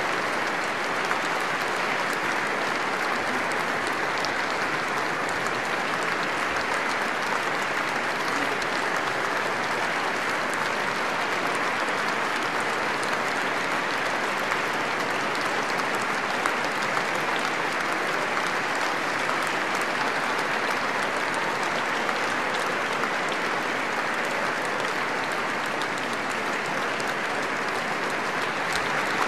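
Large audience applauding steadily: dense, unbroken clapping that neither swells nor fades.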